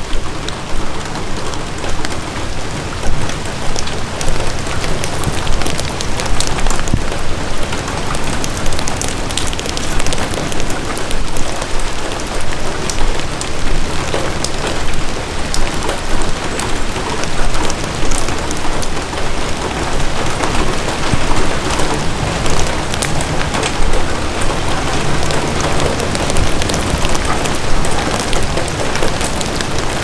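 Steady rain falling on an umbrella held overhead, with many close, separate drops ticking on the canopy over a dense hiss of rain on the forest around.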